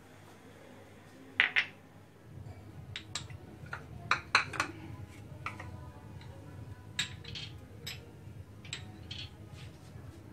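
Nigella seeds frying in hot mustard oil as a tempering: scattered crackles and pops, with a few sharper clinks about a second and a half in and again around four seconds in. A low steady hum joins about two seconds in.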